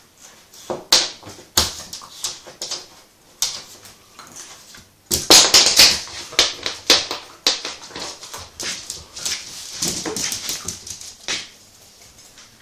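A Bedlington terrier playing on its dog bed, making short dog noises and scuffling. They come as an irregular run of brief bursts, loudest and densest from about five seconds in.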